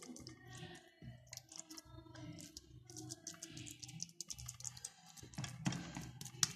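Wooden spoon scraping and tapping through corn-grit couscous in a wide dish, a run of soft scratchy clicks, over faint background music.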